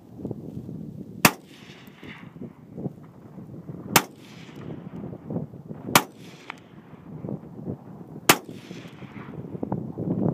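Four rifle shots, two to three seconds apart, each followed by a short rolling echo, with another shot at the very end.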